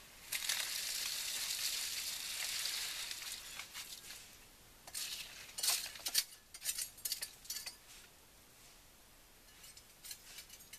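Wet concrete sliding out of a tipped bucket into a rebar-filled form, a steady pour lasting about three seconds. It is followed by a series of short scrapes from a trowel working the concrete, with a few more near the end.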